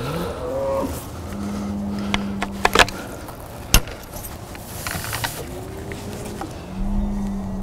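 Cattle bellowing: several drawn-out low calls, some rising in pitch and one held steady for about a second, with a few sharp clicks around the middle.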